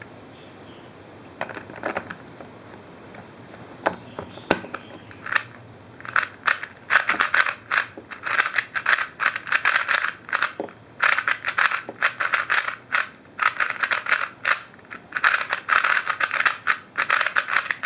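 New Rubik's cube being turned quickly, its plastic layers clacking in rapid bursts of clicks, with a few separate clicks before the turning gets going. The cube is fresh out of the box and not yet broken in, so it turns a bit stiff.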